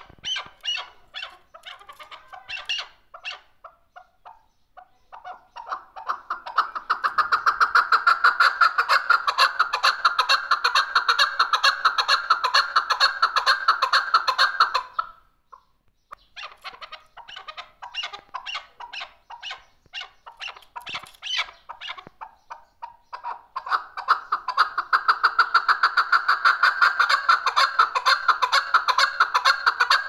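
Chukar partridge calling: scattered sharp notes that speed up into a long, fast, even run of repeated calls, break off about halfway through, then build again from scattered notes into a second fast run.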